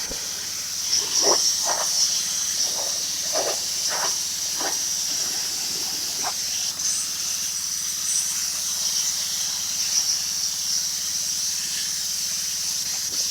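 Pressure washer spray gun with a 40-degree white tip blasting a deck surface from about an inch away: a steady hiss of spray, with a few short louder bursts in the first half.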